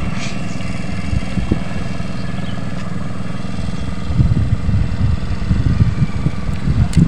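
A motorcycle engine running steadily. From about four seconds in, an uneven low rumble grows louder over it.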